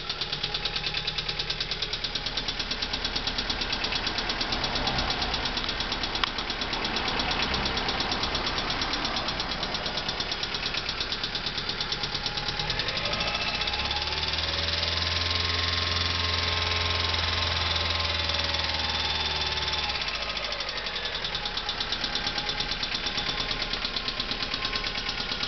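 Lancia Y 1.2 16V four-cylinder engine idling with a fast, even ticking knock, the strange engine noise its owner is asking about. About halfway through, a deeper hum joins for several seconds and the engine note rises and falls slightly.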